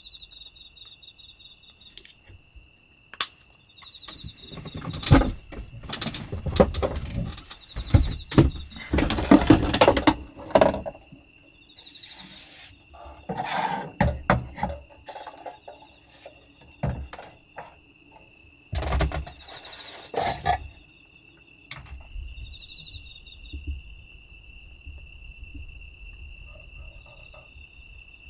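Irregular clatter, knocks and rustling of items being handled on a wooden counter, including a portable cassette gas stove being picked up and set down, loudest in the first half and again briefly near two-thirds through. Under it, crickets chirp steadily throughout.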